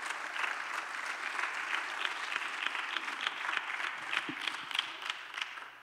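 Church congregation applauding, a dense run of many hands clapping that dies away near the end.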